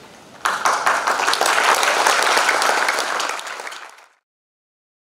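Audience applauding, starting suddenly about half a second in, then fading and cutting off about four seconds in.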